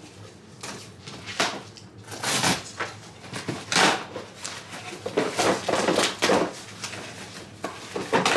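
A cardboard box being opened and its contents handled: an irregular series of scrapes and rustles.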